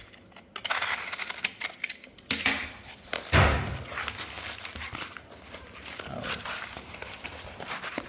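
A cardboard shipping box being opened and handled by hand: rustling, scraping and clicking of cardboard and packing tape, with a heavier thump about three and a half seconds in.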